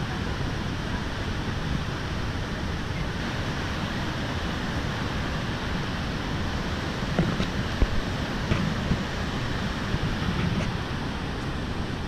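Steady rushing of the Niagara River rapids, with a few brief knocks a little past the middle.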